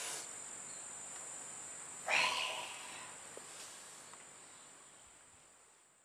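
Steady high-pitched insect drone, with a brief louder burst of sound about two seconds in. Everything fades out near the end.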